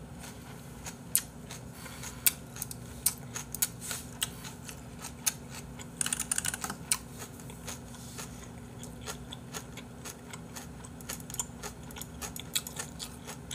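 A person chewing food close to the microphone: irregular soft mouth clicks and smacks, busiest about six seconds in.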